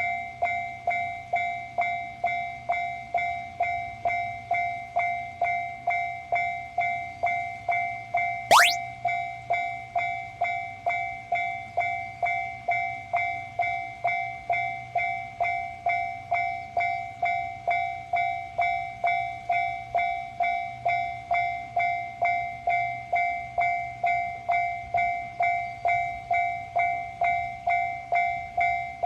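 Japanese railroad crossing warning bell ringing its steady 'kan-kan' alarm, about two even strikes a second. A quick rising swoosh cuts in about eight and a half seconds in.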